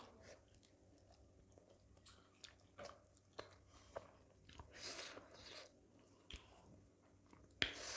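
Faint chewing of people eating chicken curry and finger-millet dhido by hand, with scattered small clicks and a sharper click near the end.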